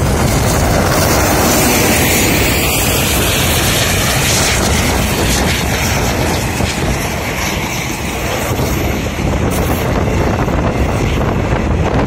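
WDP3A diesel-electric locomotive passing close by, its engine loudest in the first few seconds, then passenger coaches rolling past. Heavy wind buffets the microphone throughout.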